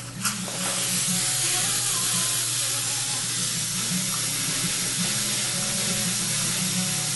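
Steady rushing, watery hiss of dental surgical suction and irrigation while an implant is driven in, with a low steady hum underneath.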